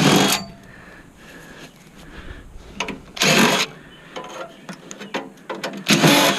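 Three short bursts of metal scraping and rattling, a few seconds apart, as the fan motor of a Bard package heat pump is worked loose from its sheet-metal housing.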